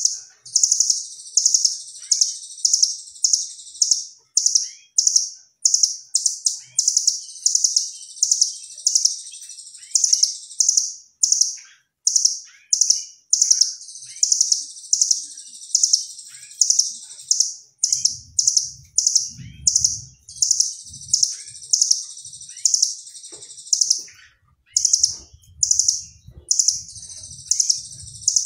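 Caged nuthatch ('rambatan doraemon') singing loudly and continuously: fast, very high-pitched trilled chips in short phrases repeated about twice a second.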